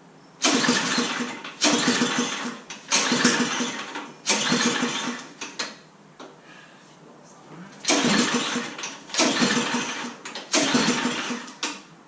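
Ariens Path Pro snowblower engine being cranked seven times, each stroke about a second long, in a run of four and then, after a short pause, three more. The engine turns over on choke but does not catch.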